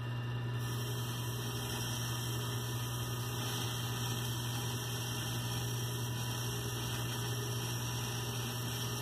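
Weidenhoff bench metal lathe running with a steady electric-motor hum and an even mechanical whir.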